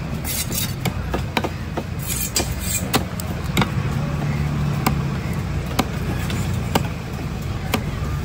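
Fish scales rasping under a gloved hand, then a heavy cleaver chopping a spadefish on a wooden block: sharp knocks about once a second. A steady low hum runs underneath.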